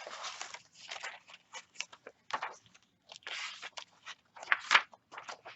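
Paper rustling and crinkling in irregular bursts as the pages of a handmade junk journal are turned and handled.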